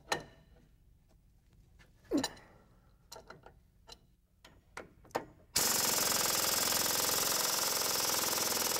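Scattered metal clicks and clinks from a hand wrench on the steering box's pitman arm nut. About five and a half seconds in, an air impact wrench starts suddenly and hammers steadily, driving the screw of a pitman arm puller to pull the pitman arm off the steering box.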